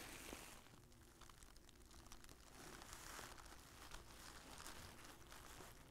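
Faint crinkling and rustling of a deflated inflatable sleeping pad's nylon fabric as hands press and smooth a repair patch onto it.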